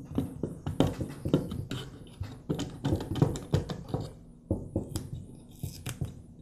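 Irregular plastic clicks and knocks as the clamshell housing of a DeWalt DCD cordless drill is handled and one half is worked loose by hand.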